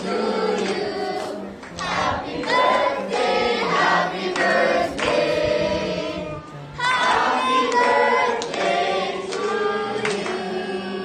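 A group of people singing together in chorus.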